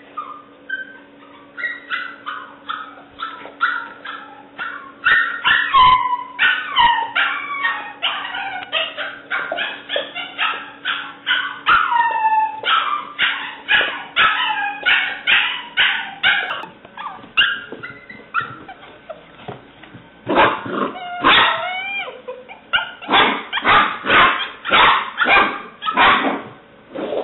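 Seven-week-old English Springer Spaniel puppy barking and yipping in quick high-pitched yaps, about three or four a second, some sliding in pitch like whines. The yapping stops briefly about two-thirds of the way through, then starts again.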